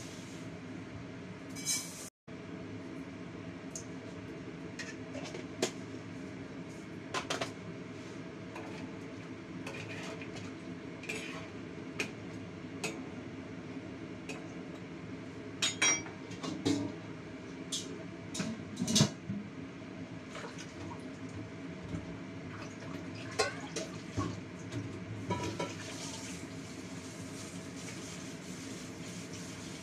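Metal spatula clinking and scraping against a wok while pieces of meat are stirred, with a few louder clanks in the middle, over a steady background hum.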